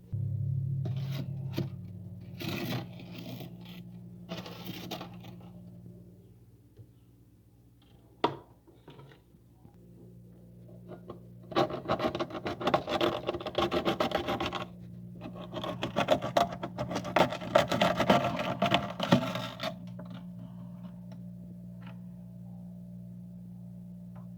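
Freezer frost being scraped off the walls in rasping strokes, a short spell of scraping early on and a long, dense spell in the second half, with a single knock in between. A steady low hum runs underneath.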